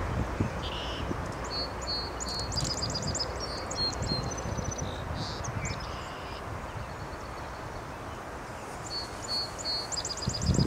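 A small songbird singing two short bouts of quick, high notes and trills, several seconds apart, over a low rumble.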